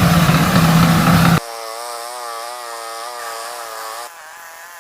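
Farm tractor engine running loudly with a steady low hum. About a second and a half in, it cuts abruptly to a quieter engine sound whose pitch wavers up and down, and it drops quieter again near the end.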